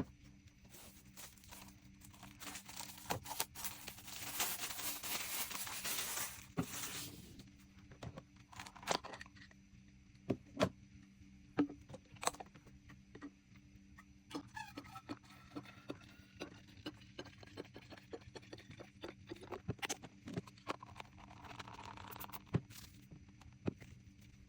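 Small objects being handled and set down on a table: a few seconds of hissing, rustling noise near the start, then scattered light clicks and taps of items being placed.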